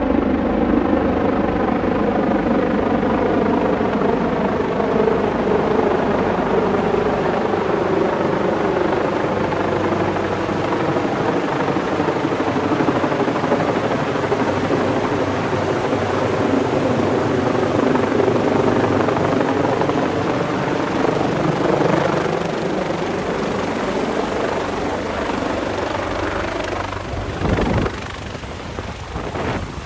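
Medical helicopter descending overhead to land: loud, steady rotor and engine noise whose pitch sags and then rises again, easing off in the last several seconds. A brief thump near the end.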